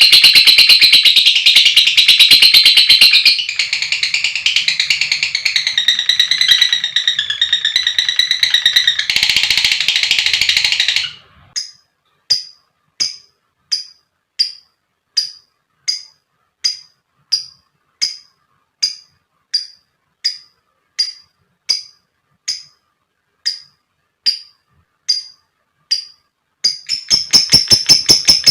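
Lovebirds chattering in a fast, continuous, shrill trill, softer for a few seconds in the middle. After about eleven seconds this gives way to single sharp chirps repeated at an even pace, a bit more than one a second. Near the end the fast trilling starts again.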